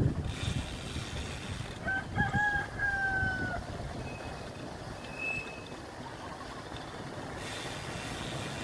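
A rooster crowing once, about two seconds in: a short broken start, then a long drawn-out note that slowly falls, over a steady rushing background.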